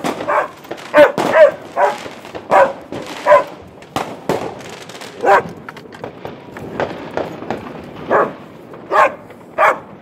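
Excited dog barking and yelping, about a dozen short calls at irregular intervals, with a few faint sharp pops between them.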